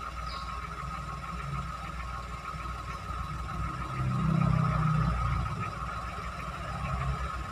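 Toyota Agya small car's engine running steadily, with a louder low swell about four seconds in that lasts about a second before settling back.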